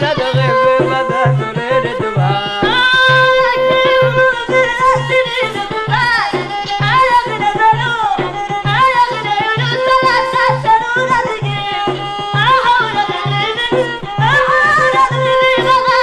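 Old Amazigh (Berber) folk song: a voice singing a bending melody over a steady, quick hand-drum beat.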